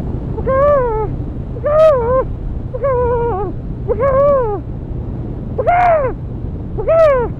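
A person hooting a high, owl-like "ooo" six times, about once a second, each call rising then falling in pitch, over the steady low rumble and wind noise of a motorcycle under way.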